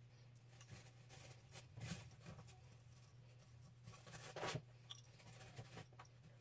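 Faint rustling and scratching of synthetic braiding hair being handled and pulled through a mesh wig cap with a latch hook. There are two louder rustles, about two seconds and four and a half seconds in.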